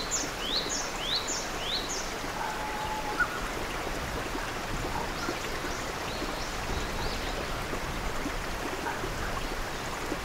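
Stream running over rocks, a steady rushing. A bird gives a quick run of short rising chirps, about two a second, over the first two seconds, with fainter calls later on.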